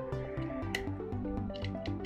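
Background music: a melody over a pulsing bass, with a few short clicks.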